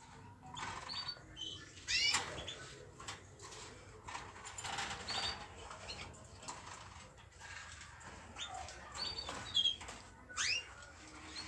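Small pet birds in a cage giving short, scattered chirps, a few loud ones about two seconds in and near the end, over faint rustling and clicks in the cage.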